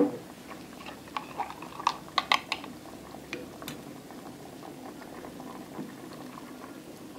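Chicken pieces in spiced broth boiling in a saucepan: a steady bubbling with irregular pops, thickest in the first few seconds.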